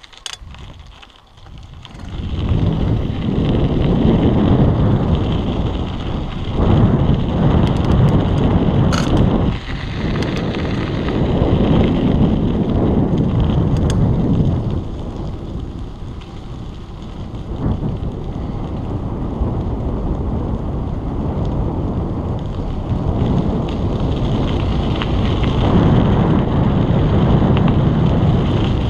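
Wind buffeting a GoPro's microphone on a moving bicycle, a deep rumbling rush that swells and eases. It is quiet for about the first two seconds, then comes in loud as the bike gets going.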